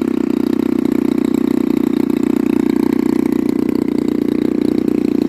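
Pitts S2C's engine running steadily at low power with a quick, even pulse. It carries the misfire that the owner puts down to a faulty spark plug cap.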